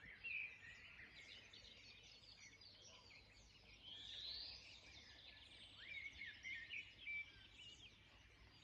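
Faint chorus of small birds chirping and whistling, many short calls overlapping, with one longer rising call about four seconds in.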